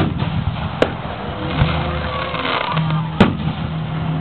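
Aerial firework shells bursting in a series of sharp bangs, the loudest about three seconds in, over a steady background rumble of noise.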